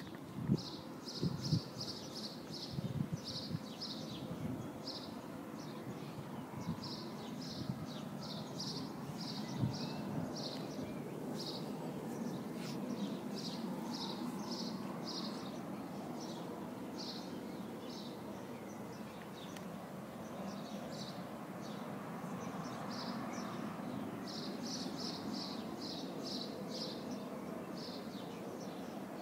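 Small birds chirping in quick runs of short high notes, again and again, over a steady low background noise. A few dull knocks in the first couple of seconds.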